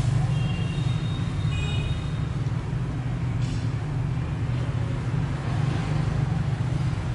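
Steady low background rumble, with a few brief thin high tones about a second in.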